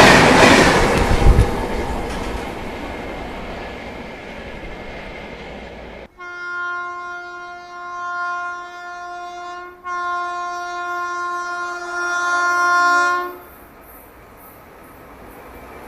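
An Indian Railways train running past, its rushing noise fading away. After a sudden cut, a locomotive horn sounds in two long, steady blasts of about three and a half seconds each, with only a brief break between them. Train noise then builds again near the end.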